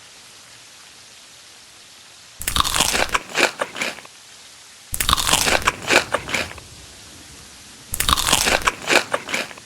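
Crunchy food being bitten and chewed close to the microphone: three bouts of loud crunching, each about a second and a half long and made of several sharp crunches.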